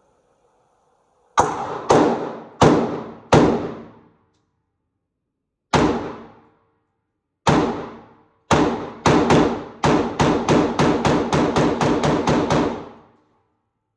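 Gunshots, each with a short ringing tail: four shots about two-thirds of a second apart, two single shots, then a fast string of well over a dozen shots at about five a second.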